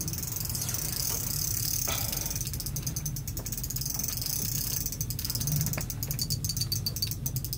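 Spinning reel's drag clicking rapidly as a hooked lake trout runs and strips line off the reel against the drag; the ticking slows and spaces out near the end as the fish tires.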